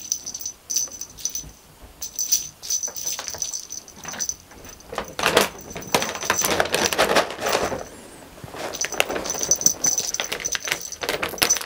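A small bell on a cat toy jingling on and off as kittens bat it about, with scuffling and scrabbling of paws on a bedspread.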